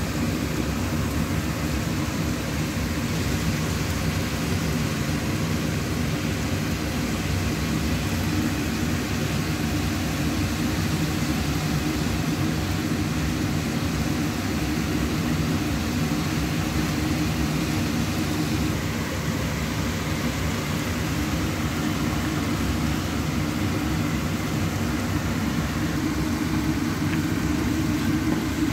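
A steady low mechanical drone that does not change, with no breaks or separate knocks.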